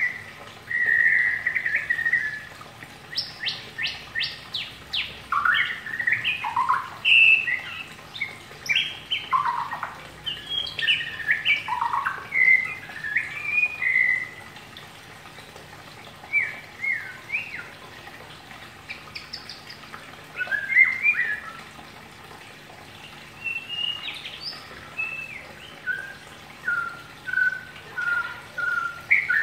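Caged male white-rumped shama (murai batu) singing in the rambling, twittering style bird-keepers call ngeriwik: a busy string of short whistled notes and chirps, with a quick run of high notes a few seconds in. The song thins to sparser phrases about halfway through and ends on a series of short, even notes.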